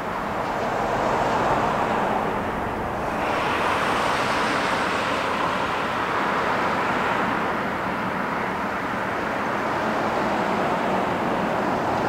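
Steady rushing noise of distant road traffic, swelling for a few seconds in the middle as a vehicle passes and then easing again.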